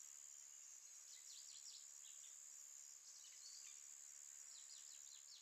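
Very faint bird chirps, short quick downward notes in three small clusters, over a steady high-pitched whine.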